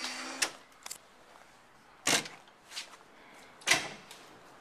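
An auto-lock entrance door being opened, with a short noise as it starts, then two loud thuds about a second and a half apart and a fainter knock between them.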